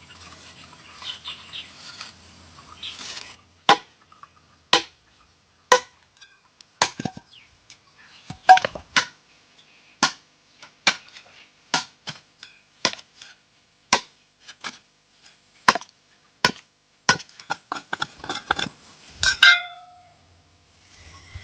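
Repeated sharp hammer blows by hand, about one to two a second, each a short dry knock without much ringing, starting about four seconds in and ending in a quick flurry of taps near the end.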